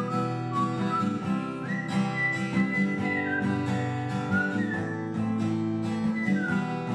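Artistic whistling: a single pure whistled melody moving from note to note with slides, over strummed acoustic guitar chords.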